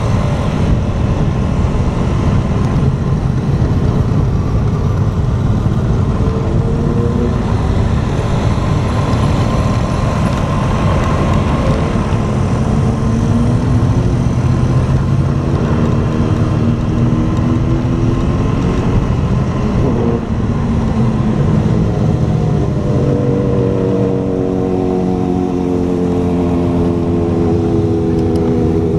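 Motorcycle engine running on the move, its pitch rising and falling several times as it accelerates and eases off, over a steady rush of wind noise.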